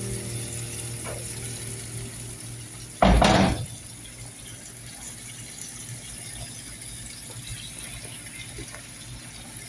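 Water from a kitchen tap gushing briefly, about three seconds in, over a low background with a faint steady hum.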